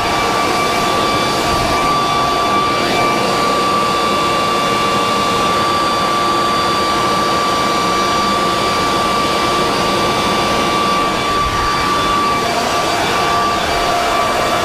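Leaf blower running steadily at full power: a loud rush of air with a constant high whine, blowing debris off a deck.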